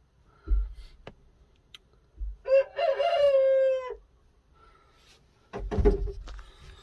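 Game rooster crowing once, a single call of about a second and a half. Low thumps come about half a second in and again near the end.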